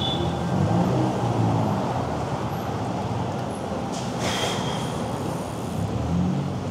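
City traffic heard from a moving bicycle: a steady rush of road noise with the low hum of vehicle engines, and a brief hiss about four seconds in.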